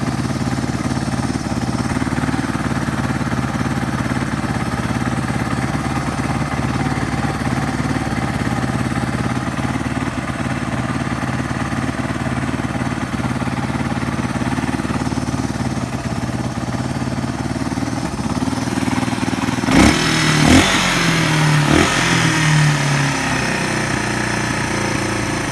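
Yamaha Serow 225's air-cooled single-cylinder four-stroke engine idling steadily with no abnormal noise. Near the end come a few sharp knocks, and the engine note rises and falls.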